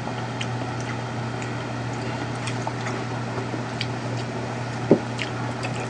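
Steady low hum with faint scattered small clicks, and one short soft knock about five seconds in.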